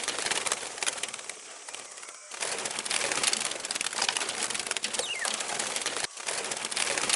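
Birds calling over a steady hiss of outdoor background noise, with a short falling whistle about five seconds in. The sound breaks off abruptly twice.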